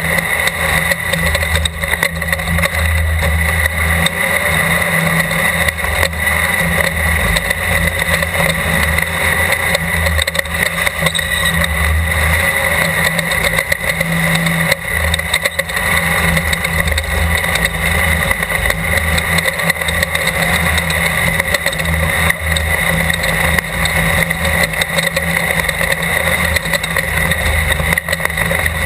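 Class 12 off-road desert race car's engine running hard at speed, loud and steady without a break, with a low rumble that swells and fades every second or so.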